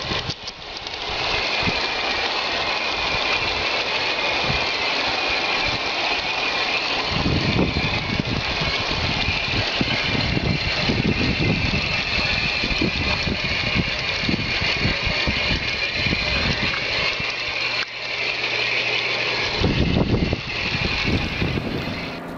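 Model Shay geared locomotive running on track: a steady mechanical whine of its electric motor and gearing over rolling wheel-on-rail noise. Heavier low rumbling joins in through the middle and again near the end.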